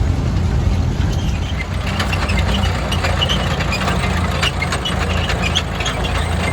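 Old farm tractor engine running steadily with a low, even rumble, and scattered light ticks from about two seconds in.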